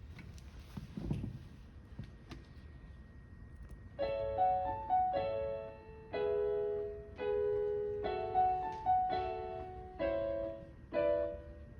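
Piano chords, about eight of them, played roughly one a second from about four seconds in, each ringing and dying away. Before they start there is low room noise with a soft knock about a second in.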